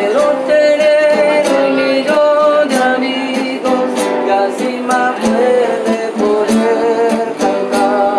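A voice singing a melody to a strummed acoustic guitar.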